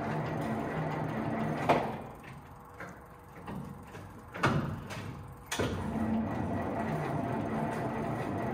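Leyland Martian's Rolls-Royce B80 straight-eight petrol engine being turned over by its starter without firing, a pulsing mechanical churn. It stops with a clunk about two seconds in, and after a couple more clunks the cranking starts again and runs on. The battery seems too weak to start it.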